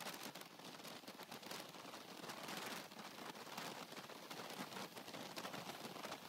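Wind and road rush over the microphone of a moving motorcycle: a steady, uneven hiss with rapid fluttering and no clear engine note.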